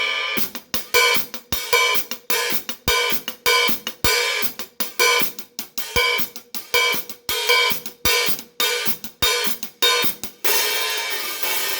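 Paiste 15-inch 3000 Heavy hi-hats and 22-inch Power Ride played in a drum-kit groove: quick, crisp cymbal strokes over a steady ring, with occasional kick drum and snare hits. About ten and a half seconds in the strokes give way to a continuous cymbal wash.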